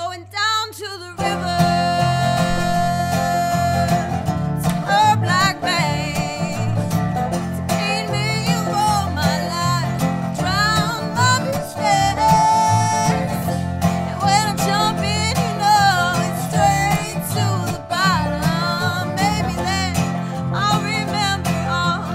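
Acoustic string band playing live in a bluegrass style, with plucked banjo and guitar under a gliding, bending melody line; the full band comes in about a second in.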